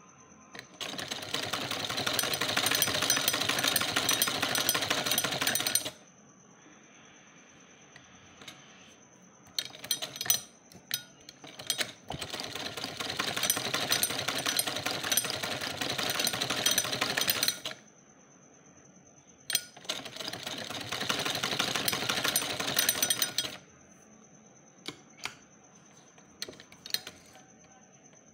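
Sewing machine stitching a double-folded hem, in three runs of rapid, even stitching about five, five and three seconds long. Short clicks and taps fall in the pauses between runs.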